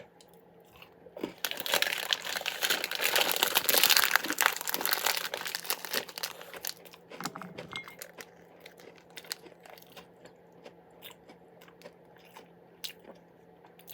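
Plastic shortbread packaging crinkling and rustling for several seconds as shortbread fingers are handled and taken out, thinning to a few small scattered clicks and rustles.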